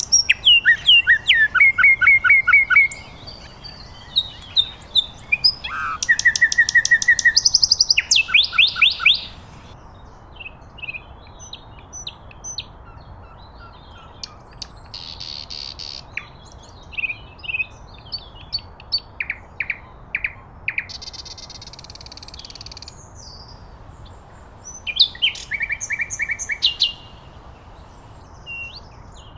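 Common nightingale singing: a string of varied phrases of rapid repeated notes, trills and whistles, loudest in the first ten seconds and again near the end, with quieter phrases in between.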